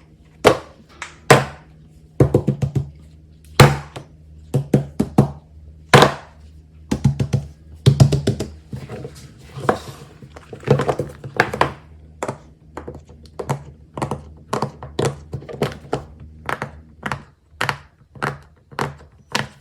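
Plastic fidget toys being handled and set down on a hard surface: a long run of irregular sharp taps and thunks, some in quick clusters.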